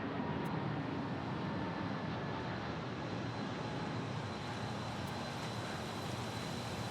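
Jet airliner engines running: a steady rush of engine noise with a faint high whine.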